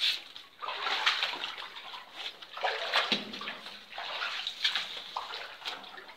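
Wellington boots wading through shallow, muddy floodwater, each step a slosh and splash, roughly one a second.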